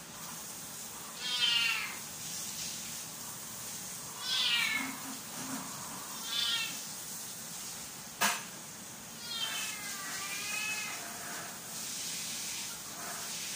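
A kitten meowing repeatedly: about six short, high-pitched meows spaced a few seconds apart. A single sharp click comes about eight seconds in.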